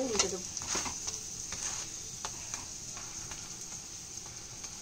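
Prawn-stuffed paratha shallow-frying in refined oil in a non-stick pan, a steady sizzle, with a few light scrapes and taps of metal spatulas as it is flipped and pressed down.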